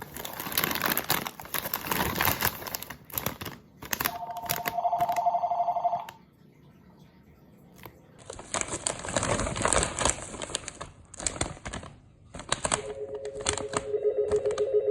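Crinkling and rustling of snack packaging being handled, broken by two electronic ringing tones about two seconds long each, the second lower in pitch than the first.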